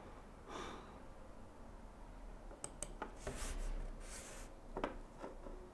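Faint clicks and soft rustling from a hand working a computer mouse and moving on a desk in a quiet small room: a few sharp clicks in the middle and near the end, with a soft rustle between them.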